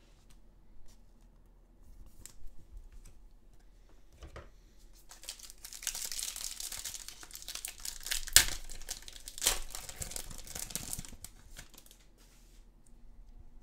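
A foil trading card pack wrapper being torn open by hand: crinkling and ripping from about five seconds in for several seconds, with a sharp crack a little past halfway and another about a second later. A few light clicks come before it.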